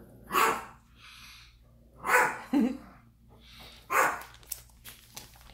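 A dog barking three times, about two seconds apart.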